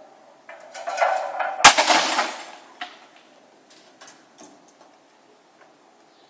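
Roof tiles thrown from a roof crashing and breaking on the ground below. A clatter builds about half a second in, then comes one sharp, loud crash, then pieces clatter and settle with a few scattered clinks.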